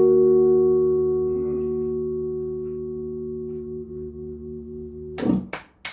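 A guitar chord struck once and left to ring, its notes sustaining and slowly fading for about five seconds. Near the end it is cut off suddenly by a knock, and hand claps begin.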